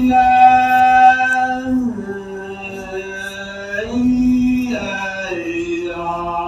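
A man's voice chanting a recitation in long held notes, stepping between a few pitches.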